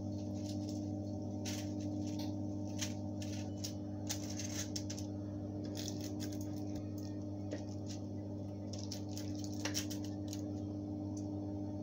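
Chicken wings being turned over on a foil-lined baking tray: scattered light clicks, taps and crinkles of a fork and the foil, over a steady low hum.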